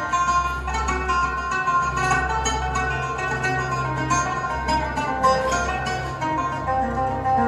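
Live band of oud, guitar, violin, electric bass, keyboard and drums playing an Arabic folk tune, with plucked-string melody to the fore over a steady bass line.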